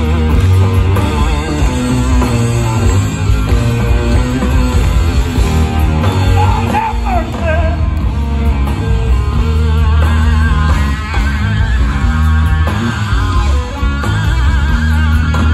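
Live doom metal band playing an instrumental passage: heavy distorted electric guitars, bass and drums, with a lead guitar line bending and wavering in pitch.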